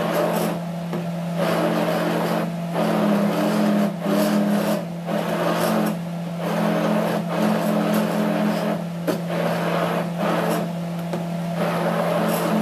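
Immersion blender motor running steadily while puréeing thick rice and fish porridge in a pot, with a constant motor hum under a churning noise that swells and dips every second or so as the blade head moves through the mixture.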